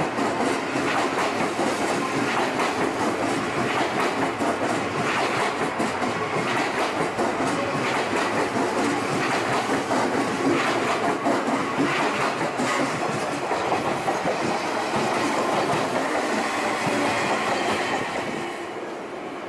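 Odakyu Romancecar electric express train passing close by over a level crossing, its wheels clacking steadily over the rail joints. The sound drops away near the end.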